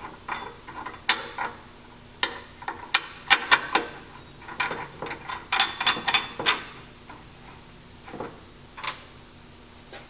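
Metal clicks and clinks of bolts being put in by hand through a motorcycle's rear brake reservoir relocation bracket. The clicks are irregular, with quick clusters about a third of the way in and just past halfway.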